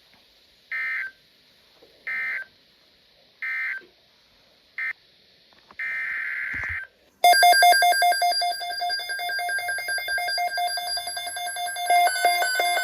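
Three short EAS/SAME digital data bursts about a second and a half apart, the end-of-message code that closes a NOAA Weather Radio alert, followed by two more data bursts, the second about a second long. About seven seconds in, a much louder electronic alarm starts, with fast pulsing, stepping tones.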